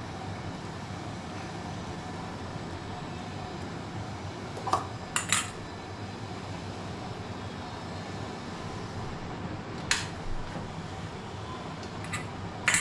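A handful of short clinks and taps of kitchen utensils on a plate while a sandwich is assembled, spaced a few seconds apart, over a steady background hum.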